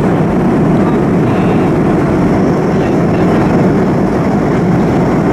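Steady cabin noise of a Boeing 737-200 in flight during descent: its Pratt & Whitney JT8D turbofan engines and the airflow past the fuselage, heard from inside the cabin.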